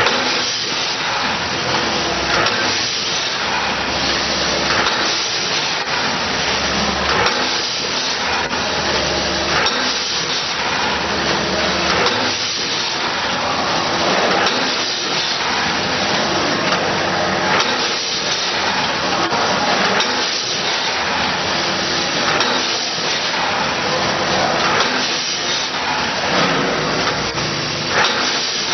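Seed packaging machine running: a steady, loud mechanical noise with a low hum and repeated short clacks.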